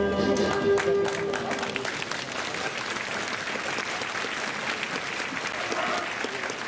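A school song with orchestral backing ends on a long held note about two seconds in. Applause of many hands clapping rises over it and carries on.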